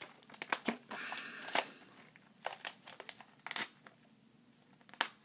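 Hands handling a corrugated cardboard target and a crossbow bolt: crinkling rustles and irregular clicks and taps, with a sharp click near the end.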